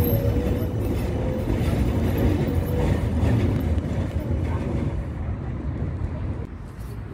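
Tram rumbling past on the curved track of a terminal loop, with a steady whine over the first few seconds. The rumble fades as the tram pulls away.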